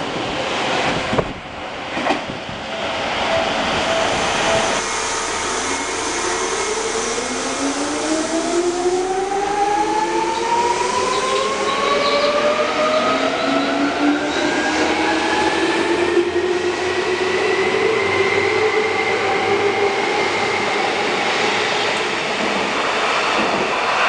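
Seibu 2000 series electric commuter train accelerating away from a station. Its traction motors whine in several rising tones that climb steadily for about fifteen seconds as it gathers speed, over a steady rumble of wheels on rail.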